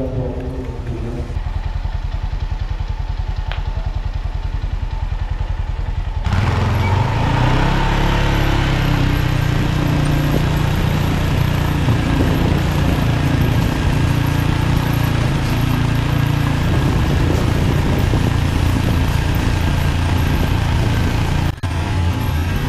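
Quad ATV engine running close by, towing a roping dummy sled; it gets louder from about six seconds in and keeps running steadily, with a brief break near the end.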